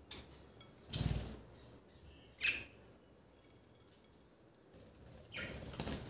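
Budgies fluttering their wings as they move about in a bowl of grass set out for them to bathe in, with a flurry about a second in and a longer one near the end. A single short, sharp budgie chirp comes about halfway through.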